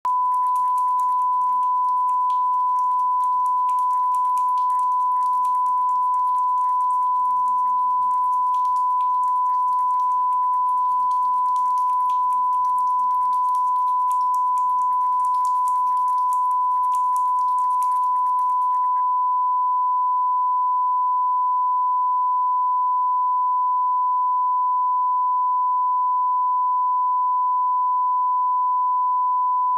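A steady, unbroken test tone of a single pitch, the pure line-up tone that goes with a television test card. Faint hiss and crackle lie under it for roughly the first two-thirds, after which the tone is heard clean.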